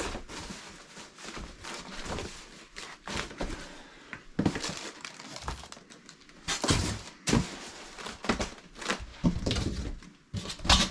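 Irregular thunks, knocks and rustling from handling a computer monitor and its packaging, with some crinkling.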